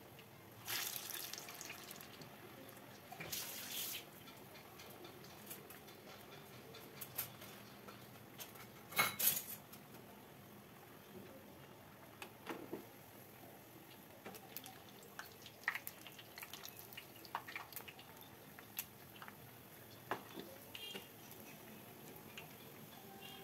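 Hot oil sizzling and bubbling around urad dal vadas deep-frying in a pan, with a few louder flares of sizzle in the first half. Light clicks of a metal slotted spoon against the pan follow in the second half as the vadas are moved.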